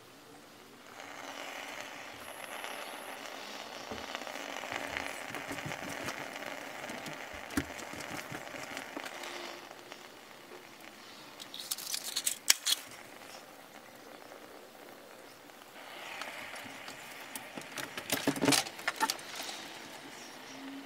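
Ash-coated sugar cube burning after being lit with a match: a faint hiss, with clusters of small clicks around the middle and near the end.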